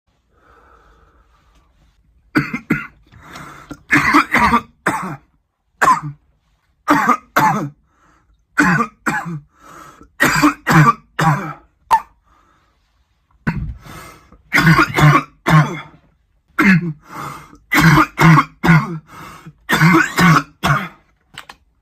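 A man coughing hard and over and over: harsh, throaty coughs in fits of two to six, with short pauses between the fits, starting about two seconds in.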